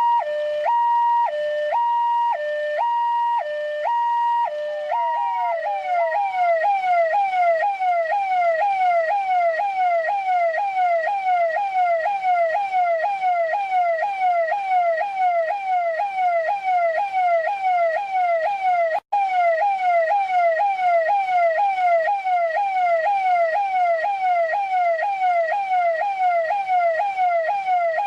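Electronic police siren of the Indian/Pakistani type. It first gives a two-tone hi-lo wail, alternating about once a second, then switches about five seconds in to a fast falling yelp that repeats a little over twice a second. The sound cuts out for an instant about two-thirds of the way through.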